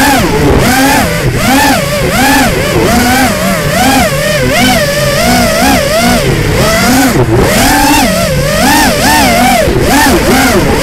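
FPV quadcopter's brushless motors whining, the pitch sweeping up and down about once or twice a second as the throttle changes, over a steady hiss of air and propeller wash.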